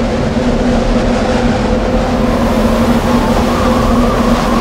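Strong wind blowing over the microphone in gusts, with a steady low hum and a wavering whistle that rises in the second half.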